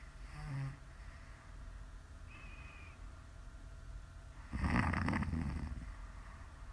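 A woman snoring in her sleep: a short, low rattly snore near the start, then a longer, louder rough snore about four and a half seconds in.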